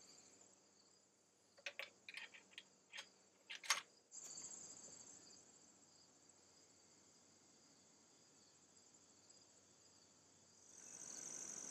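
Faint, steady high buzzing of insects, with a quick run of sharp metallic clicks about two to four seconds in as a cartridge is loaded into the Remington 700 bolt-action rifle. The buzzing grows a little louder near the end.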